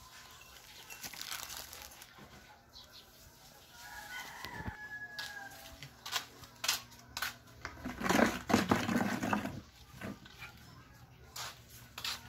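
Rooster crowing: a fainter crow about four seconds in, then a louder, harsher one around eight seconds in, with scattered short clicks.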